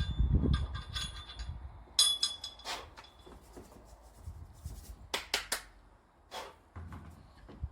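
Metal clinks and knocks, some with a short high ring, from a 25.1 kg plate-loaded anvil stub lift: the weights clink against each other as the stub is gripped, lifted and set down. The loudest clink comes about two seconds in, and a cluster of quick knocks follows about five seconds in.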